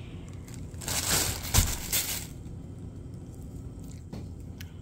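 Crinkly packaging being handled: a burst of crinkling and crushing about a second in, with a light knock in the middle of it, then a few faint clicks.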